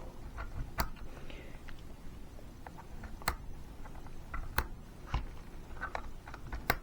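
Scattered sharp clicks and taps of a tool and the hair tool's plastic parts being handled, with about five louder clicks spread through.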